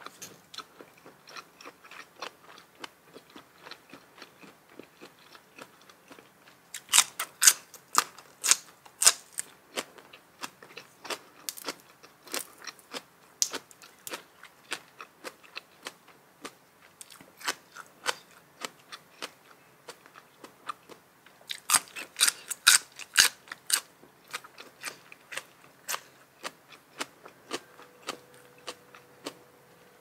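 Close-up chewing of a mouthful of spicy seafood salad with raw vegetables: a steady run of small wet chewing clicks, broken by two stretches of loud crisp crunching, about seven seconds in and again about twenty-two seconds in.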